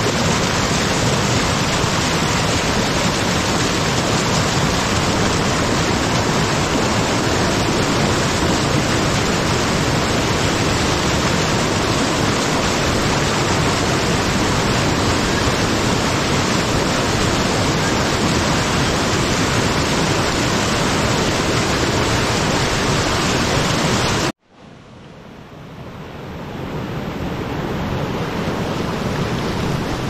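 Mountain stream rushing over rocks in small cascades, a loud, steady rush of water. About twenty-four seconds in it cuts off suddenly, then fades back in over a few seconds.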